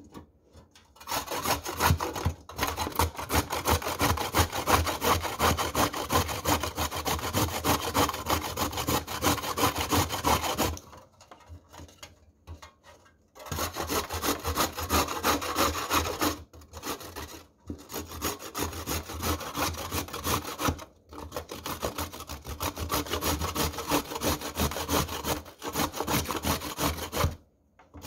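Raw carrot being grated on a stainless steel box grater: fast, continuous rasping strokes, with a pause of about two seconds near the middle and a few shorter breaks.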